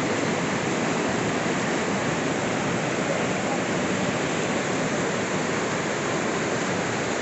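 Fast-flowing mountain river rushing over whitewater rapids close by: a steady, loud, unbroken rush of water.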